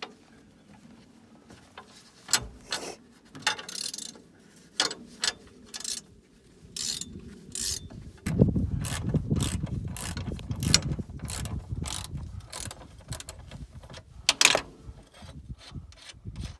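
Ratchet wrench and hand tools working on the machine: a run of separate sharp clicks and clanks, with a denser, louder rattling stretch about halfway through.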